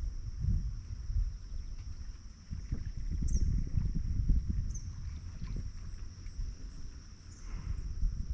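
A steady, high-pitched chorus of insects, like crickets, over a low uneven rumble, with a few brief high chirps.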